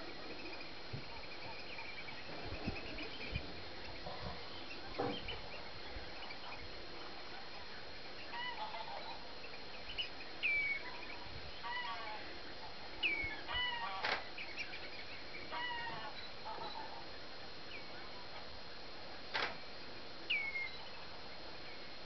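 Scattered calls of wild birds over a steady hiss. There are short, high, down-slurred notes and some lower calls, together with a few sharp clicks and a faint steady high whine.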